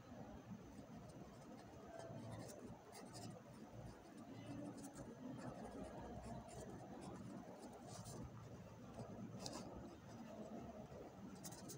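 Ballpoint pen writing on a lined paper notebook page: faint scratching of the pen strokes, with light ticks as the tip lifts and touches down between letters.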